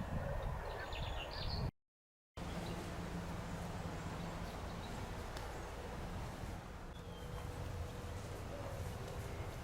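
Outdoor farmyard ambience: a few faint bird chirps in the first second or so, then after a brief dropout a steady low background rumble, with one more faint chirp later.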